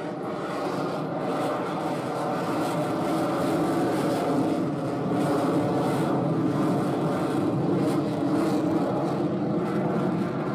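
The twin Pratt & Whitney F119 turbofan engines of a Lockheed Martin F-22 Raptor in flight make a loud, steady jet rumble. It swells slightly a couple of seconds in, then holds.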